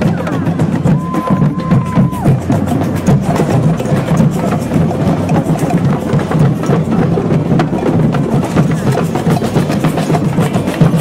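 Street band of drums and saxophone playing a busy, percussion-heavy groove, with rapid stick clicks and wood-block-like knocks over a steady drum beat. A single high note is held for about a second near the start.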